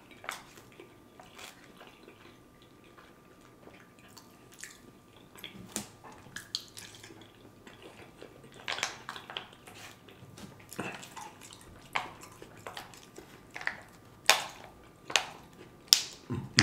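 Close-miked eating sounds: a person chewing a mouthful of pasta, with irregular sharp wet mouth clicks and smacks, more frequent in the second half.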